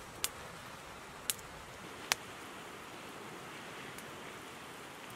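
Wood campfire burning: three sharp crackling pops in the first couple of seconds over a steady soft hiss.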